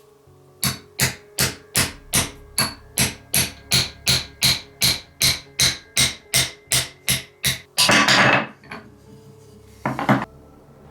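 Repeated hand hammering: about nineteen sharp, evenly spaced blows, nearly three a second. Then comes a longer rasping burst and one short one near the end. Background music plays under it.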